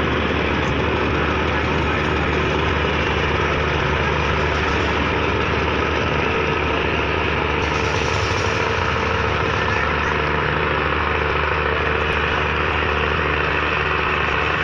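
A boat engine running steadily: a constant, even drone with a low hum underneath and a dense rush of noise above it.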